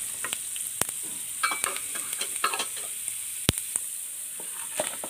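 Chana dal and urad dal frying in a little oil in a stainless steel pan with a steady high sizzle, stirred and scraped with a wooden spatula. A few sharp clicks stand out, the loudest about three and a half seconds in.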